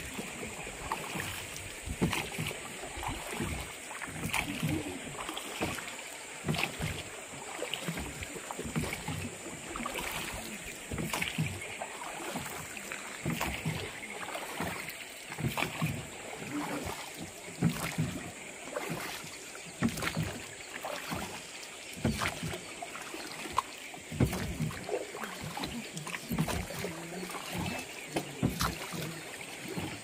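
Rowing boat under way: oars dipping and splashing in irregular strokes about every second or two, with water moving against the hull.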